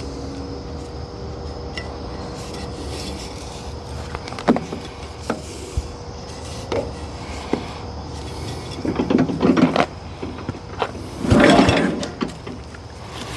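Recoil starter rope on a Wheel Horse 702's single-cylinder cast-iron Kohler engine pulled a couple of times, turning the engine over without it firing, with knocks and clicks around the pulls. The pulls are only to free up and wake the long-idle engine before a real start attempt.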